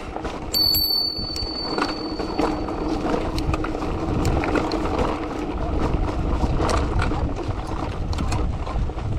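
Bicycle rolling over a rough trail, rattling and knocking over bumps with a low rumble. A high steady squeal starts about half a second in and lasts about two seconds.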